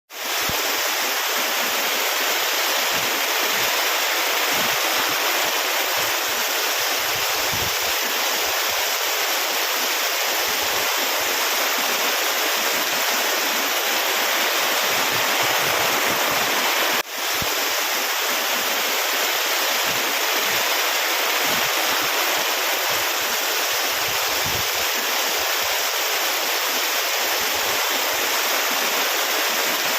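Steady rush of flowing water. The sound drops out for an instant a little past halfway and swells back.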